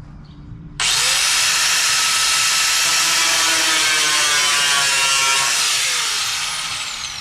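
Electric cut-off wheel kicks on abruptly about a second in and runs at full speed with a loud, high whine, cutting into sheet steel. Near the end it is let off and spins down, its pitch falling.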